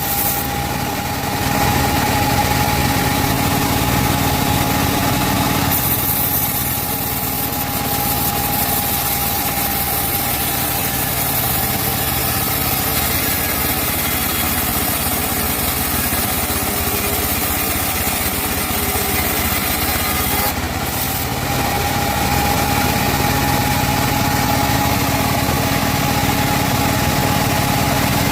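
Sawmill band saw running steadily while cutting teak wood, a continuous motor drone with a steady whine. The sound changes character about six seconds in and again about twenty-one seconds in.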